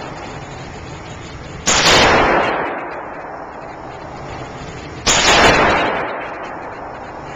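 Two single revolver shots, about three and a half seconds apart, each sharp crack trailing off in a long echo off the walls of an indoor firing range.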